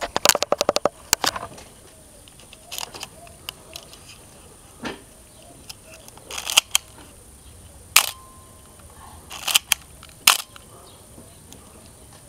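Mechanical clicks from a Canon AV-1 film SLR and its Canon FD 50mm f/1.8 lens being handled as the lens is taken off the mount. There is a quick run of about a dozen small clicks in the first second and a half, then single sharp clicks every second or two.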